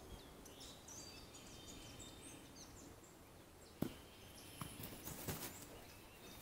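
Faint outdoor backyard ambience with birds chirping in the first half, a single sharp click a little past halfway, and a few soft thumps after it.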